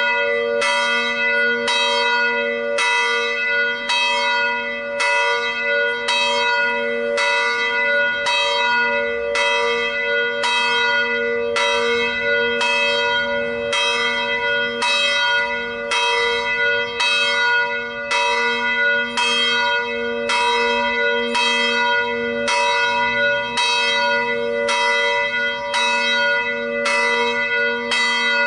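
A single Felczyński-cast bronze church bell swinging on its motorised drive, its clapper striking about once a second. Each strike rings on into the next at the same pitch.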